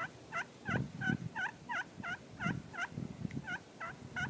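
Slate pot turkey call (Beard Hunter Purr & Cluck pot) played with a striker, making a run of soft hen yelps, about three short notes a second: hen talk.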